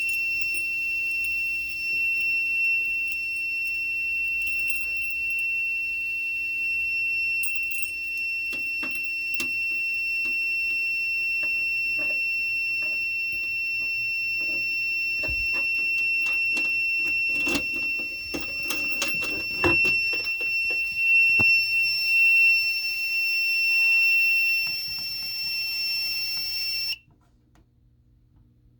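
Simplex fire alarm system in alarm: one steady, continuous high-pitched electronic tone, with clicks and knocks of handling in its second half. The tone cuts off suddenly a couple of seconds before the end.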